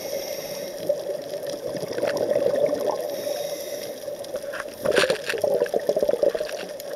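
Underwater sound through a diving camera's housing: water gurgling over a steady hum, with a louder burst of bubbling and crackling about five seconds in, from a scuba diver's exhaled bubbles.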